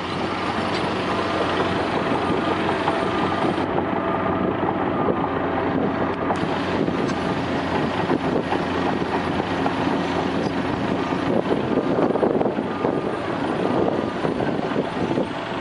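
Heavy diesel earthmoving machinery running steadily: a large tracked excavator and a crawler dozer at a recovery in mud. The sound shifts abruptly about four seconds and again about six seconds in.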